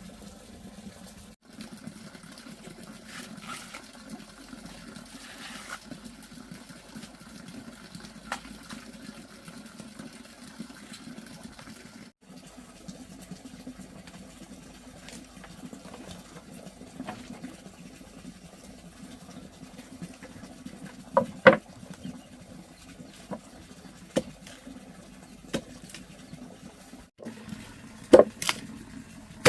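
Steady running or splashing water, with a few sharp knocks in the last third.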